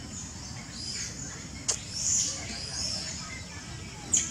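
Baby long-tailed macaque giving short, high-pitched squeals and chirps while being handled by its mother. Two sharp clicks come through, one under two seconds in and one near the end.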